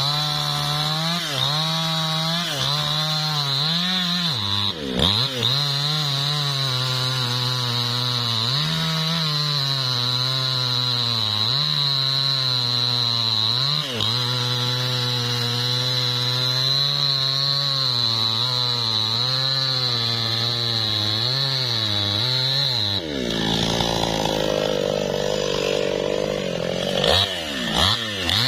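New West 628 two-stroke chainsaw cutting into the trunk of a lamtoro (leucaena) tree near its base, the engine held at high revs with its pitch wavering under the load of the cut. Late on the engine speed drops for a few seconds, then revs back up near the end.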